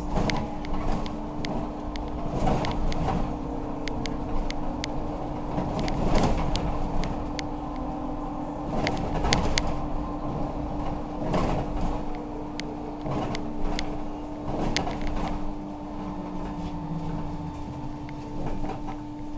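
Inside a moving trolleybus: a steady electric hum runs throughout, under a rumble from the road and frequent rattles and knocks from the bodywork.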